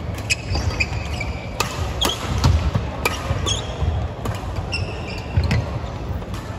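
Badminton play: several sharp racket-on-shuttlecock hits at irregular intervals, mixed with short high squeaks of sports shoes on the wooden court floor, in a large sports hall.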